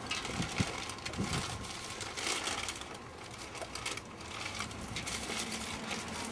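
Paper takeaway bag rustling and crinkling as it is handled, in irregular crackly bursts, loudest about two seconds in.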